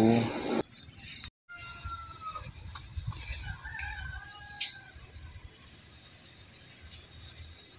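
Crickets and other insects chirring steadily, an evenly pulsed trill over a high steady hiss, with faint bird calls a few seconds in. There is a brief gap of silence about a second in.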